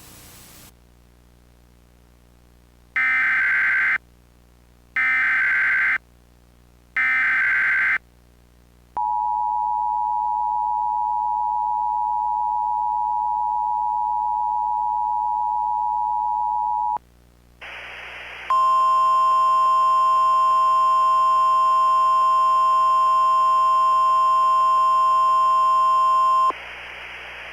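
Emergency Alert System tones: three one-second bursts of SAME digital header data about two seconds apart, then the steady two-tone EAS attention signal for about eight seconds. After a brief hiss, a second, louder steady alert tone sounds for about eight seconds.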